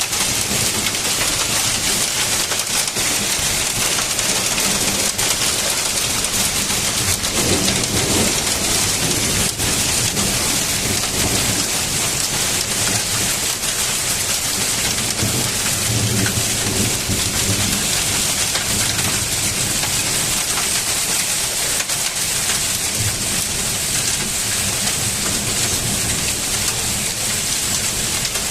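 A hailstorm with heavy rain: hailstones about the size of hazelnuts pelting down in a dense, steady clatter of countless small hits.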